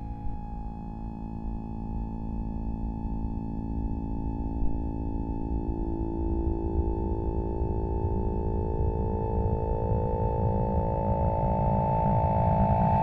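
Noise Toaster analog noise synthesizer, processed through a 1010music Lemondrop granular synth, holding a steady electronic drone near 800 Hz with stacked overtones over a rough low buzz. It grows slowly louder throughout.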